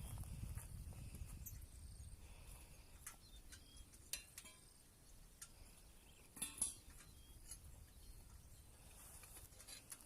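Near silence with a few faint, scattered clicks and clinks, the loudest a short cluster about six and a half seconds in.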